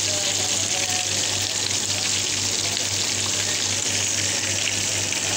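Battered fish pieces sizzling steadily as they deep-fry in a pan of hot oil, with a low steady hum underneath.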